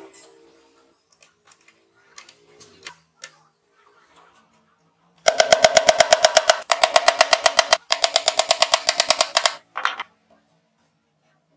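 A small hammer rapidly tapping cable-clip nails into plywood, about ten sharp taps a second in two runs with a short break between them, then one last tap. Faint clicks of handling come before the taps.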